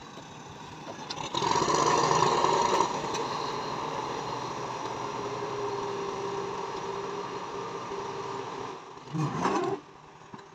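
Massey Ferguson tractor engine running, getting louder about a second in and loudest for a second or so, then running steadily a little lower. A short, louder burst of sound comes near the end.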